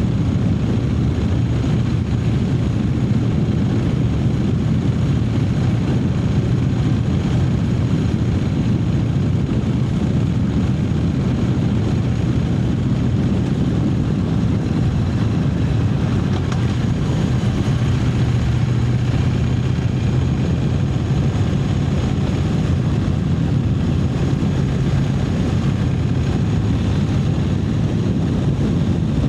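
Triumph Speed Twin 900's parallel-twin engine running steadily under way at an even cruising speed, its low note heard over a steady rush of road and air noise.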